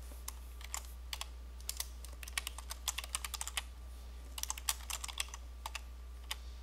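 Typing on a computer keyboard: irregular runs of key clicks with short pauses between them, over a low steady hum.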